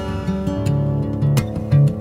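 Background music played on acoustic guitar, plucked notes over a steady chord.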